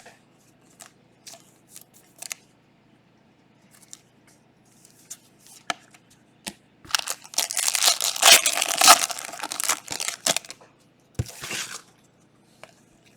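Foil wrapper of a Panini Prizm soccer card pack being torn open: scattered light clicks of cards being handled, then a crinkly tearing about seven seconds in that lasts roughly three seconds, followed by a short second rip.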